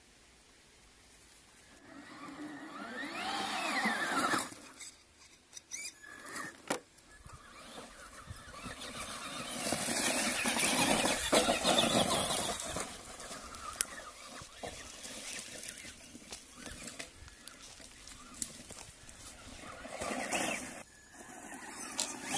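Traxxas Rustler XL-5 RC truck driving off-road: its brushed electric motor whines up in pitch under throttle, with its tyres scrabbling over dirt and gravel. There is one sharp knock about two-thirds of the way through as the truck lands from a jump.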